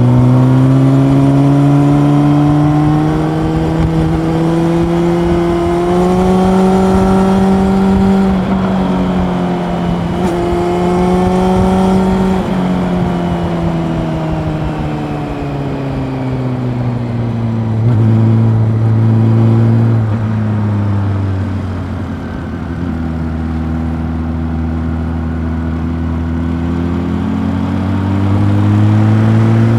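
Honda CB400 Super Four's inline-four engine heard from onboard while riding. Its pitch climbs over the first several seconds, falls away gradually as the throttle is eased, stays low for a while, then climbs again near the end.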